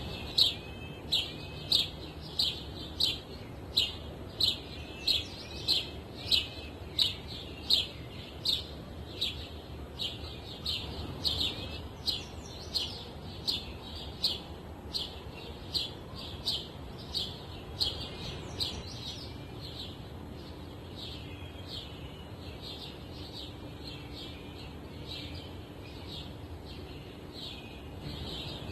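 A single bird chirping over and over, a little more than one short chirp a second, growing fainter about two-thirds of the way through. Under it runs a steady hiss of wind.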